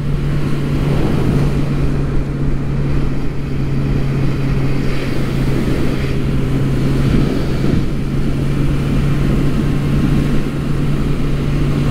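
Motorcycle engine cruising steadily at about 55 mph, holding one unchanging note under wind and road noise.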